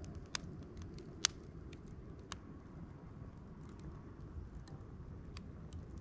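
Wood campfire crackling in a steel fire grill: scattered sharp pops at irregular intervals, the loudest a little over a second in, over a steady low rumble.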